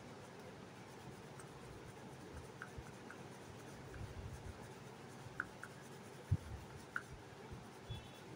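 Oil pastel stick rubbing and scratching across paper in short strokes. A few soft knocks come through, the loudest about two-thirds of the way in.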